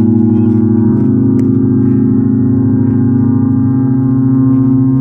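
A foghorn sounding one long, loud, deep blast, held steady, with its tone shifting slightly about a second in.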